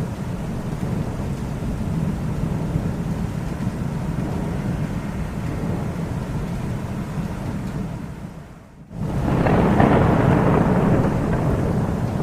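Thunder rumbling steadily. About eight and a half seconds in it fades almost to nothing for a moment, then a new, louder roll of thunder sets in.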